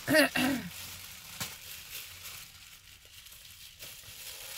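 Thin gift wrapping crinkling and rustling as a present is handled and unwrapped, with a sharp click about a second and a half in. A brief vocal sound at the start is the loudest thing.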